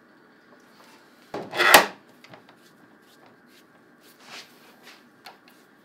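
Bar clamps being handled on an oak panel glue-up: one loud sliding scrape, metal on wood, about a second and a half in, followed by a few light clicks and knocks.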